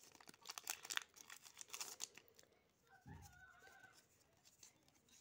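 Foil wrapper of a Pokémon card booster pack crinkling and tearing open: a run of faint, quick crackles over the first two seconds or so.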